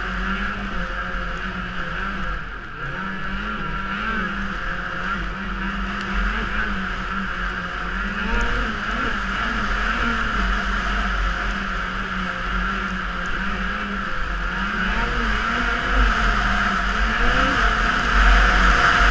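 Snowmobile engine running under throttle through deep snow, its revs wavering up and down and climbing slightly louder near the end, with a steady low wind rumble on the helmet camera's microphone.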